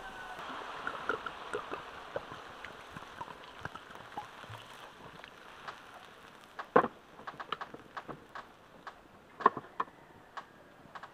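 Pork and onions sizzling softly in an iron wok over a wood fire, with scattered sharp clicks and knocks, the loudest about seven and nine and a half seconds in.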